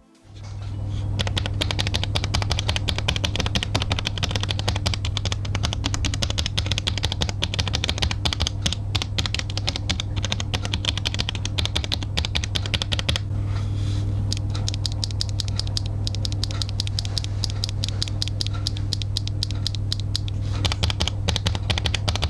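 Fast, continuous typing on a mechanical keyboard with Akko Cream Blue Pro V3 tactile switches, a dense run of keystroke clicks that pauses briefly a little past halfway. A steady low hum runs underneath.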